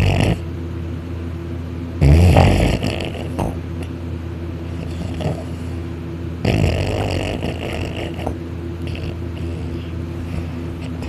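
A man snoring loudly in his sleep, lying on his back with his mouth open: one snore about two seconds in and a longer one about six and a half seconds in, over a steady low hum.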